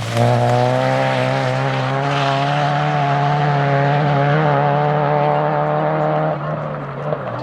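Rally car engine running at high, nearly steady revs for about six seconds, then dropping away near the end.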